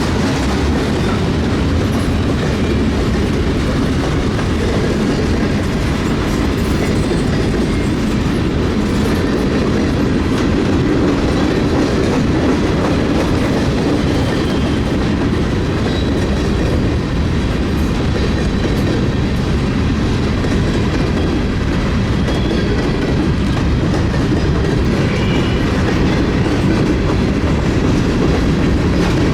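Freight train cars rolling past at trackside, their steel wheels rumbling and clacking steadily over the rail.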